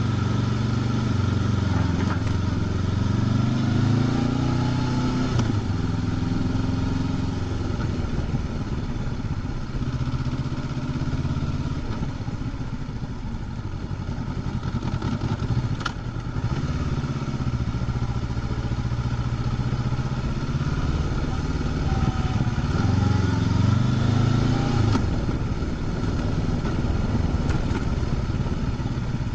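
Honda CB500X's parallel-twin engine running through its stock exhaust while riding, its pitch rising and falling with the throttle a few seconds in and again past the middle.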